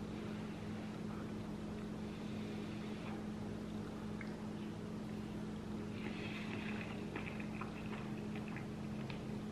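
A steady low electrical or appliance hum, with faint clicks and mouth sounds of a man chewing a forkful of soft noodles, most noticeable a little past the middle.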